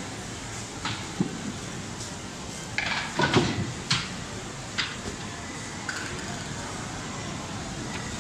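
Busy market-shop ambience: a steady background hum of people with scattered sharp clinks and knocks, like crockery and glass, and a louder cluster of clatters about three seconds in.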